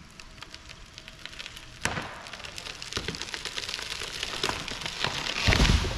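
A tall felled tree going over: sharp wood cracks and snaps start about two seconds in and come faster as the branches and leaves rush through the air, ending near the end in a heavy, low thud as the tree hits the ground.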